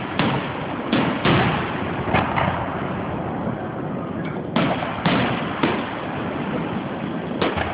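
Aerial firework shells bursting overhead: about ten sharp bangs at irregular spacing, with a lull around three to four seconds in.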